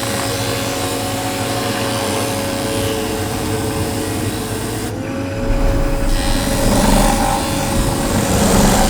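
Woodworking power tool running as it cuts or shapes wood, with a steady motor hum; about five seconds in the hum shifts slightly higher and a low rumble joins in as the sound gets louder.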